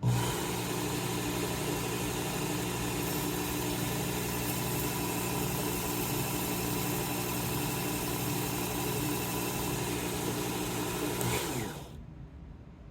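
Work Sharp Knife and Tool Sharpener's belt motor switched on and running steadily with a hum and a hiss as the abrasive belt works a pizza wheel's edge to knock off a remaining burr. Near the end it is switched off and winds down with a falling pitch.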